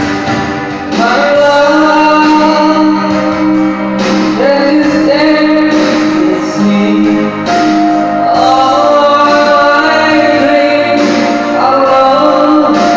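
Music with singing voices, held notes and flowing phrases throughout.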